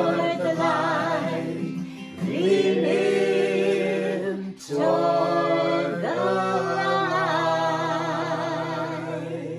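A woman and two men singing the closing lines of a hymn in harmony, with acoustic guitar, drawing the words out in long held notes with vibrato. Each new phrase slides up into its note, and the last one is held to the end.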